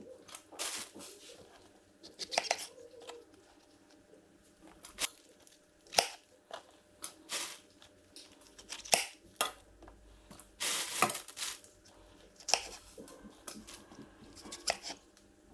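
Kitchen knife cutting through fresh false morel mushrooms on a cutting board: irregular sharp crunching cuts and taps of the blade on the board, with one longer tearing cut about two-thirds of the way through.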